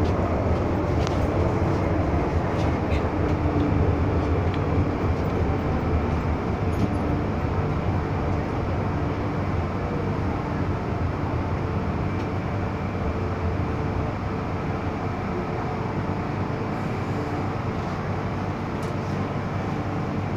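Inside the cabin of an MTR M-Train running between stations: a steady rumble of wheels on rails and the running gear, easing a little towards the end as the train slows for the next station.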